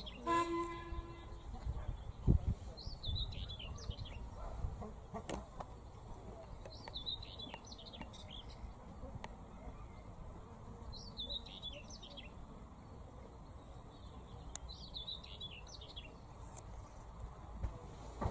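A songbird singing the same short, warbling phrase over and over, about every four seconds, over a faint low rumble. A brief pitched tone sounds at the very start, and a single low thump about two seconds in is the loudest moment.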